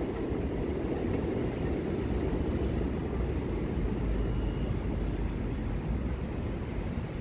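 Steady low rumble of city background noise, with no distinct events.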